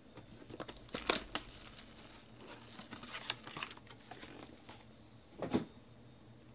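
A foil-wrapped trading card pack and its cardboard box being handled and opened, crinkling and crackling in short bursts, with the loudest sharp crackle near the end.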